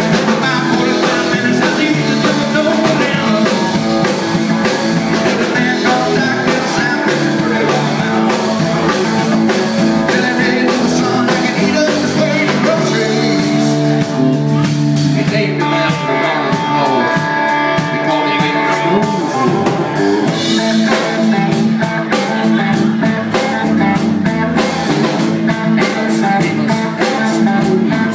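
Live rock band playing: electric and acoustic guitars over a drum kit, with singing.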